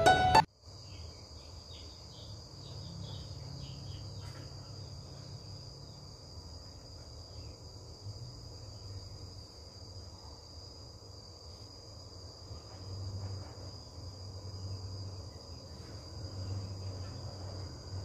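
Insects trilling, a steady high unbroken tone, over a low hum, with faint small clicks from hands picking through beans in a bowl.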